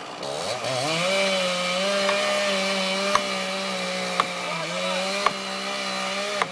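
Chainsaw revving up from low to high speed within the first second, then running steadily at full throttle with slight dips as it cuts into a tree. Sharp clicks about once a second ride over the engine noise in the second half.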